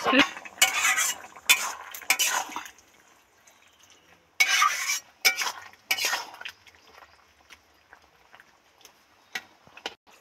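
A wooden spatula stirring and scraping a thick curry of potatoes and small fish in a metal kadai. The scraping and clatter come in two bouts, then thin out to a few faint clicks.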